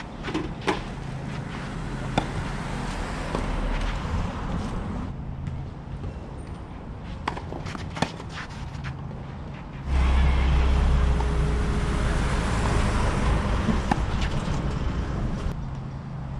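Tennis rally: several sharp hits of the ball on racket and court, spaced a second or more apart. About ten seconds in, a gust of wind starts buffeting the microphone with a loud rumble for about five seconds.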